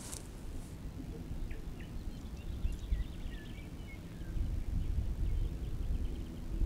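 Outdoor pond-side ambience: an uneven low wind rumble on the microphone, with a few faint, short bird chirps.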